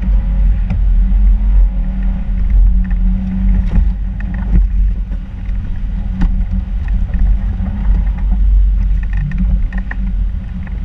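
Vehicle engine and driving noise picked up by a camera on the hood: a loud, steady low rumble with scattered knocks and thumps as the vehicle drives through deep snow.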